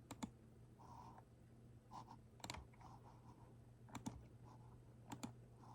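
A few faint, scattered clicks of computer keys being pressed, over a faint steady low hum.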